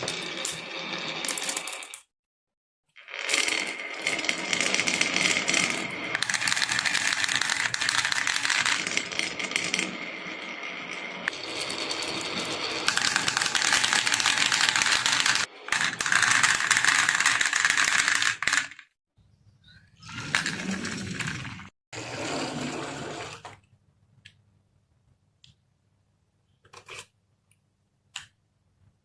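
Marbles rolling and clattering down a wooden marble run: a dense stream of clicks and rattles, broken off several times by abrupt silences. Only a few scattered clicks are left near the end.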